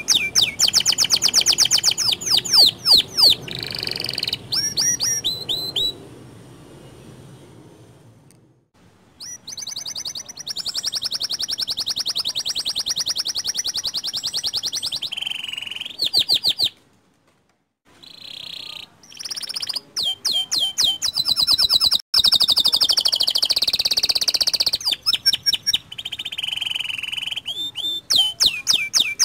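Local canary singing: fast, high trills and rolls of rapidly repeated notes. The song drops lower for a few seconds early on and stops for about a second past the middle before resuming.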